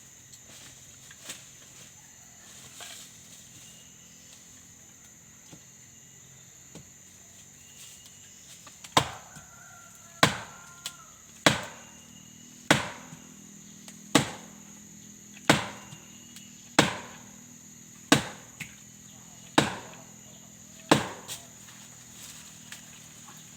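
About ten heavy blows struck on wood, evenly paced about one every 1.3 seconds, starting about nine seconds in. A steady high-pitched insect buzz runs underneath.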